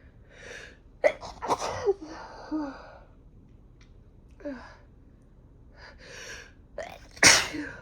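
A woman sneezing twice, brought on by sniffing chhinkni sneezing snuff: a sharp sneeze about a second in with gasping after it, then, after a pause and quick inhales, a louder sneeze near the end.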